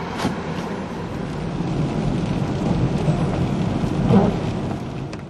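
Car driving on a wet road, heard from inside the cabin: a steady low rumble with the hiss of tyres on wet pavement, and a bump about four seconds in.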